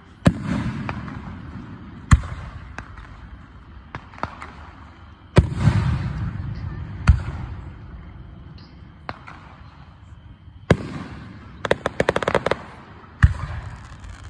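Aerial firework shells bursting, one sharp boom every second or two, each trailing off in a low rumble. About twelve seconds in comes a quick run of crackling pops.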